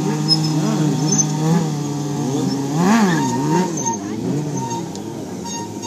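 Stunt motorcycle engines revving, the pitch climbing and dropping in repeated blips, with a sharp rev up and back down about three seconds in as a bike is throttled up onto its back wheel in a wheelie.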